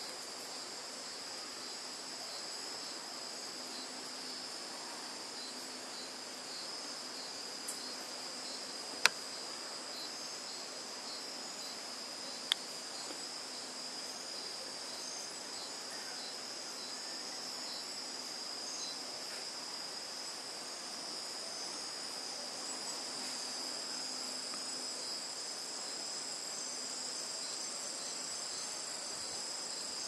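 Steady dusk chorus of insects, several high-pitched trills layered together without a break. A few sharp clicks cut through it, the loudest about nine seconds in.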